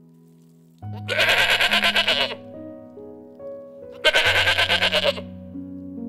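Two long, quavering bleats from a farm animal, one about a second in and one about four seconds in, over background music of sustained, changing notes.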